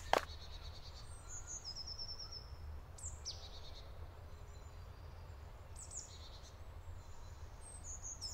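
Songbirds singing: short high chirps and trills every couple of seconds over a faint low rumble, with a single sharp knock at the very start.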